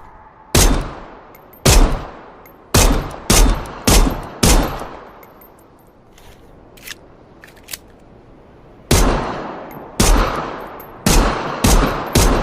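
Glock pistol firing single shots: six shots about a second or less apart, a pause with two faint clicks, then five more, each shot followed by a fading echo.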